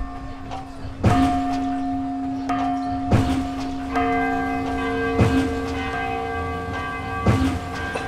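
A large hanging pagoda bell struck on its side with a wooden striker, four strokes about two seconds apart, each leaving a long ringing tone. A second bell tone joins about four seconds in.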